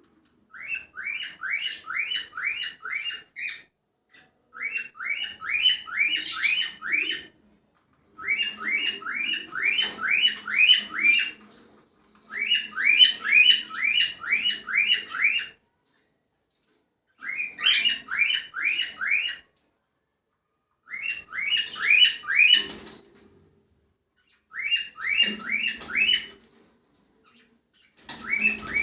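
Cockatiel calling in bouts of short, rising chirps, several notes a second. Each bout lasts two to three seconds, with short pauses between them.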